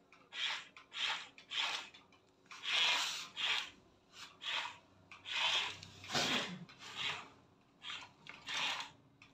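Huina remote-control toy excavator's small electric motors and plastic gears whirring in short bursts, about one every half second to a second, as the arm and tracks are worked.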